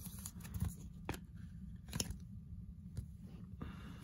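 Light handling of trading cards and a rigid plastic toploader: a few soft clicks and taps as the sleeved card is handled and set down, over a low steady hum.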